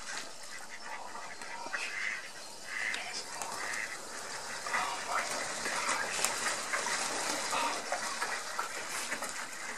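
A flock of mallards on open water quacking and calling, many short irregular calls overlapping, over a steady splashing of water.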